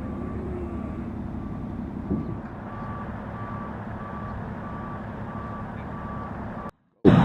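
A construction vehicle's reversing alarm beeping steadily about twice a second over the low, steady rumble of its engine. The sound cuts off abruptly shortly before the end.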